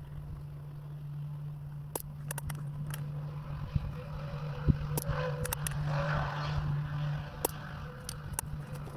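A steady low engine hum, with scattered light clicks and a sharper knock a little before the middle; the hum stops about seven seconds in.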